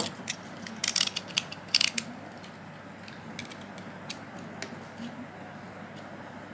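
Plastic snap clips of a Samsung Galaxy S3's rear housing clicking as the housing is prised off the phone. A quick run of sharp clicks comes in the first two seconds, then a few scattered lighter clicks.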